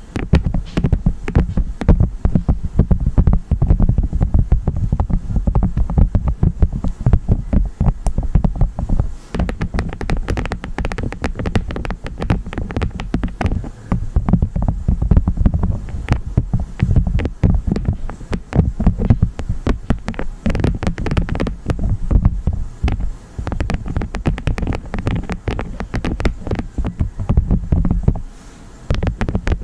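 Honeycomb wax crunched and squished close to the microphone: a dense, continuous run of sticky crackles and clicks over low, heavy thumps.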